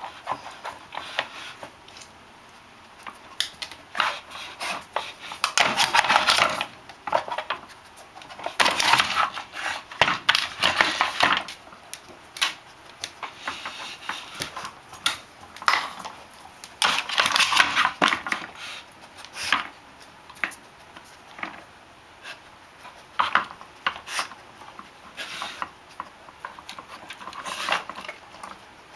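A dog working a plastic rotating puzzle feeder: the toy's stacked layers click, knock and scrape as it pushes them round to uncover the treat compartments. There are irregular clatters and several longer rustling, scraping bursts.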